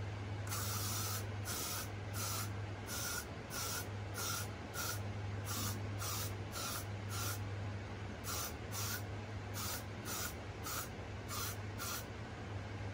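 Aerosol can of Got2b Glued hairspray sprayed in about twenty short hisses, roughly two a second, with a pause of about a second partway through. A steady low hum runs underneath.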